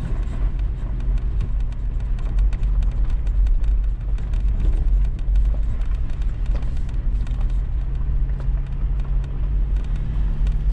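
Toyota 4Runner driving over dirt-road ruts: a steady low engine and road rumble, with many small clicks and rattles as the truck bumps along.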